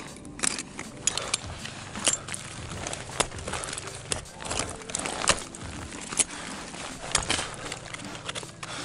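Ice axes and crampons striking the ice of a frozen waterfall on a lead climb: a sharp strike about once a second, some louder than others.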